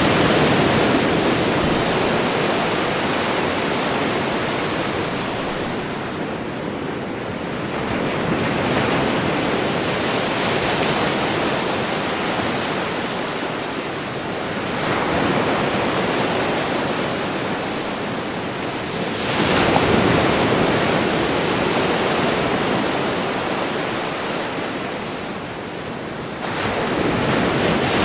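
Sea waves washing onto a beach: a continuous surf wash that swells four times as waves break, roughly every five to seven seconds, and eases off between them.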